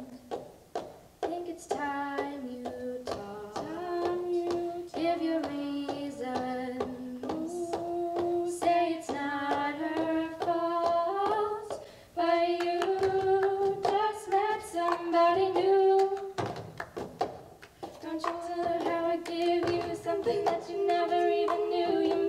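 Two young female voices singing a pop song in two-part harmony, accompanied only by the rhythmic taps, slaps and claps of a cup-game routine: cups knocked and passed on a tabletop and hands clapping. The singing grows louder about twelve seconds in.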